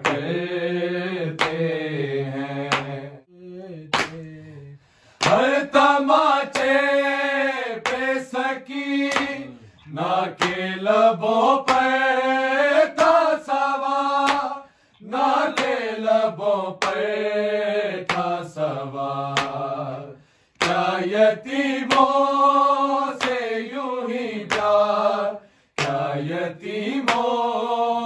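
Men's voices chanting a noha, an Urdu Muharram lament, without instruments. The phrases are long, sustained and melismatic, with short breaks between lines. Sharp, fairly regular beats keep time under the singing.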